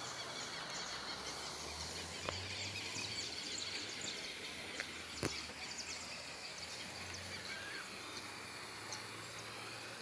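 Outdoor rural ambience: small birds chirping over a steady high insect drone, with a low rumble that swells twice. Two sharp clicks, about two and five seconds in.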